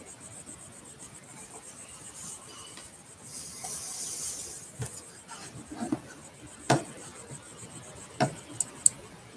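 Handling noise close to the microphone: a rubbing hiss for about a second, then a handful of separate sharp clicks and knocks, the loudest about two-thirds of the way through.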